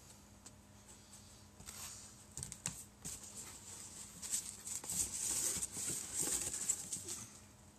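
Rustling and scraping of foam packing and cardboard as small 3D-printed model parts are pulled out of their foam insert. It starts about two seconds in, is busiest in the second half and dies away just before the end.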